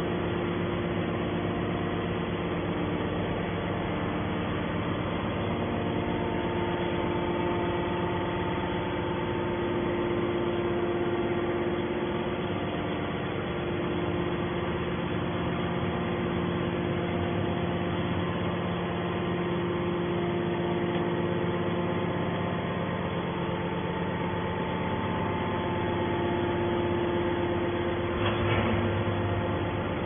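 Hydraulic scrap-metal baler running: the steady hum of its electric motor and hydraulic pump, with several held tones, and a brief knock about two seconds before the end.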